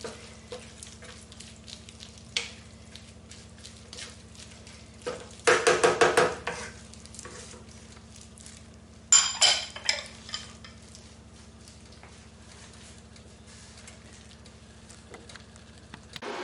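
Seafood and tomato mixture simmering and sizzling in a pan while a metal utensil stirs it, with light clicks and scrapes. Twice, about five and nine seconds in, the utensil clatters against the pan in a short burst of ringing metal knocks.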